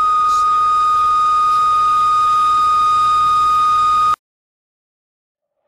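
Steady, loud single-pitched test tone as the radio station leaves the air, cutting off suddenly about four seconds in.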